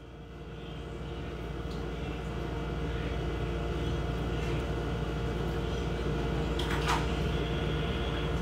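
A steady low hum with a faint hiss over it, fading in over the first second or two, with one short sharp sound about seven seconds in.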